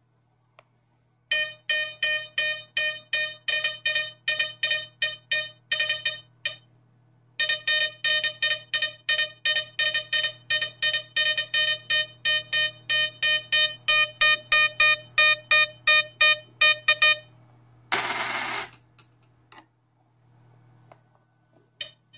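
Metal detector's audio signal giving rapid buzzy beeps, about four a second, as a coin is passed over the search coil, stopping briefly about six seconds in and then resuming for ten seconds. A short burst of hiss follows near the end.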